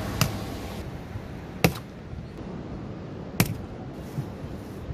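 Four short, sharp knocks and clicks from a large cardboard shipping box being handled and its top flap opened, over a steady background hiss.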